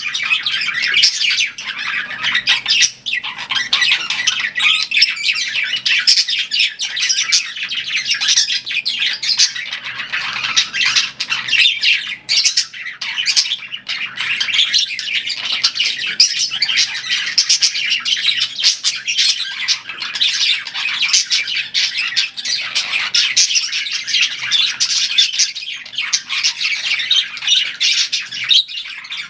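Budgerigars chirping and chattering without pause, a dense stream of quick, overlapping chirps and squawks.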